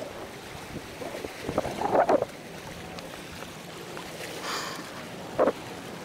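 Short scuffs and knocks of footsteps on seawall riprap boulders as someone climbs down toward the water, the loudest a cluster just before two seconds in and one near the end. Underneath, small waves washing against the rocks and wind on the microphone.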